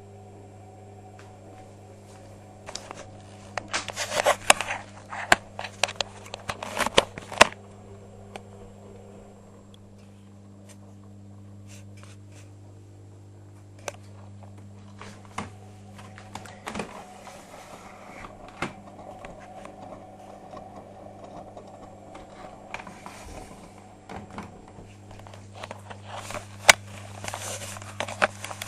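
Privileg Sensation 9415 washing machine running, with a steady hum. Two spells of rapid clattering and knocking come about four seconds in and again near the end, with single knocks in between.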